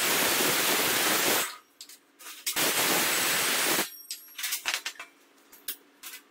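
Cordless circular saw cutting through thin steel sheet in two loud, harsh passes, the first ending about a second and a half in and the second lasting just over a second. Light metallic knocks and clanks follow as the cut sheet is handled.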